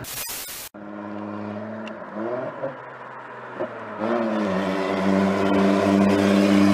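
A burst of TV-static hiss lasting under a second, then a loud modified car engine: a short rev about two seconds in, then it revs up around four seconds in and holds a steady droning note, growing louder as the car drives past. The exhaust noise is hellacious.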